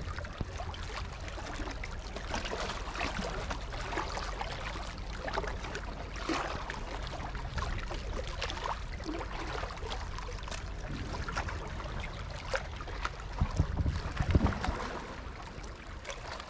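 Small waves lapping and splashing irregularly against the rocks at the water's edge, over low wind rumble on the microphone. A few louder low thumps come near the end.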